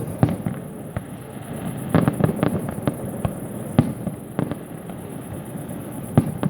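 Fireworks going off: a run of sharp bangs and crackles at uneven intervals, thickest about two seconds in, with single louder reports around four and six seconds.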